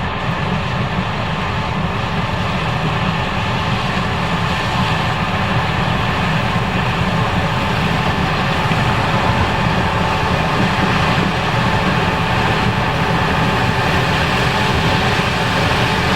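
Case IH 5140 Axial-Flow combine running steadily while harvesting corn, an even, unbroken machine drone.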